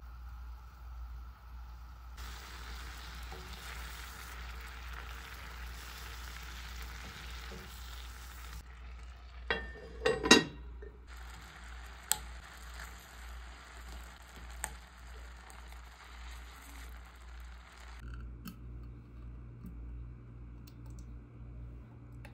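Peach slices in brown sugar syrup sizzling in a frying pan while a silicone spatula stirs them, with a brief loud clatter about ten seconds in. Near the end the sizzling stops and a low steady hum is left.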